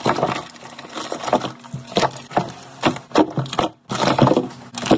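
Frozen packages of beef knocking and clunking against one another as they are dropped into a freezer: hard, irregular knocks, about one or two a second.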